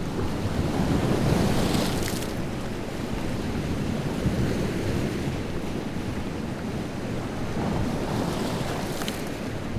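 Wind-driven lake waves breaking on the shore in a continuous, swelling wash, with wind on the microphone. A wave crashes with a bright splash about two seconds in and another near the end.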